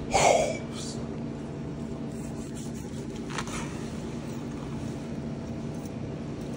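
A knife bites into the crusted bark of smoked beef ribs in a short rasp at the start, with a faint second cut about three and a half seconds in. Under it runs a steady hum of fans or kitchen equipment with several constant tones.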